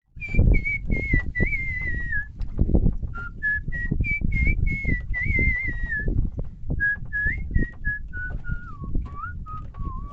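A person whistling a tune in short gliding notes, the melody stepping downward in pitch, over irregular low thumps.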